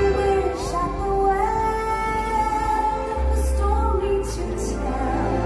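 Soundtrack of a castle projection show: music with a woman singing long held notes.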